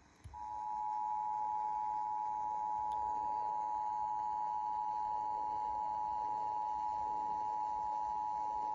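Emergency Alert System attention signal: the two-tone alarm of 853 Hz and 960 Hz sounded together, holding steady for about eight seconds and cutting off abruptly at the end.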